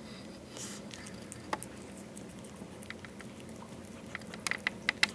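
Cat eating pieces of potato: small clicking chews that come quickly in a run near the end.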